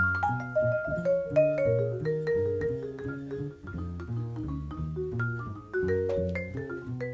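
Live jazz: a vibraphone soloing in quick runs of ringing mallet notes, over an upright bass line and a drum kit.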